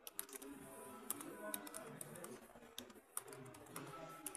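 Laptop keyboard keys clicking at an uneven pace, as in typing, with faint voices in the background.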